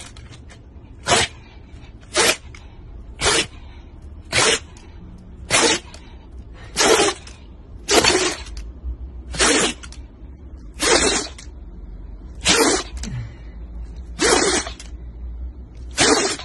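A Shiba Inu dog sneezing over and over: about a dozen short, sharp sneezes, a little over a second apart.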